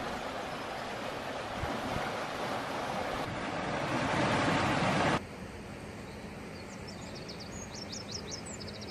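Swollen river in flood rushing past, a loud steady rush of water that builds and cuts off suddenly about five seconds in. A quieter steady hiss follows, with small birds chirping in quick high calls near the end.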